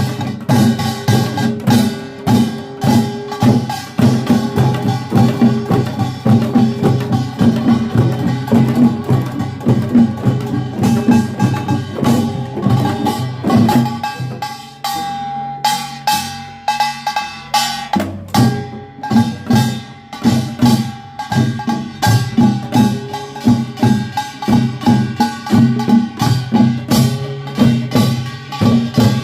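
Korean pungmul percussion ensemble playing a fast, driving rhythm: small kkwaenggwari gongs clanging over janggu and buk drums, with gongs ringing underneath. About halfway through the playing thins out for a few seconds, then the full ensemble comes back in.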